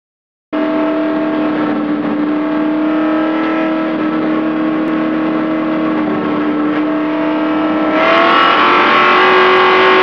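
Racing truck's engine heard from inside its cab, running hard at a steady pitch once it cuts in just after the start. About eight seconds in it gets louder and its pitch rises as the truck accelerates.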